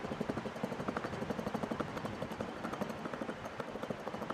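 A small plastic-headed mallet tapping quickly and lightly, over and over, on the aluminium crankcase half of a Garelli VIP moped engine to seat a part in the case.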